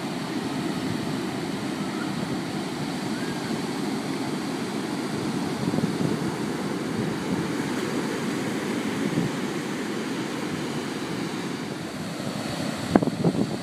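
Surf breaking on a sandy beach, a steady rushing wash, mixed with wind buffeting the microphone. A few sharp knocks come near the end.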